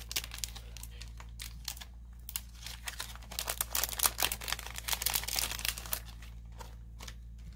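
Clear plastic packet crinkling as it is handled and opened, a run of irregular crackles.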